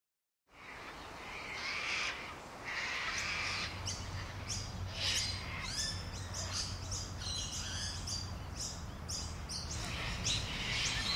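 Birds calling, with many short, high chirps coming quickly one after another from about four seconds in, over a low steady rumble.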